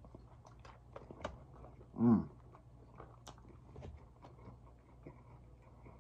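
Close-up mouth sounds of a man biting and chewing a chicken gyro in pita bread: scattered small wet clicks and smacks. About two seconds in comes one short hum from the voice, the loudest sound.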